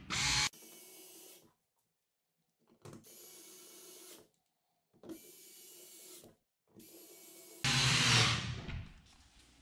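Ryobi cordless screwdriver running in several short bursts, driving the screws that clamp a recessed pass-through plate against the drywall. The runs at the very start and near the end are the loudest, and four fainter runs of about a second each come between them.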